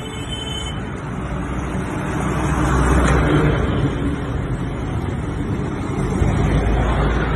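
City bus driving past close by through an open barrier lane, its engine rumble and tyre noise building to their loudest about three seconds in as it passes.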